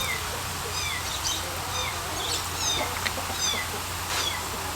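An animal's short, high calls, each falling in pitch, repeated over and over about once a second or a little faster.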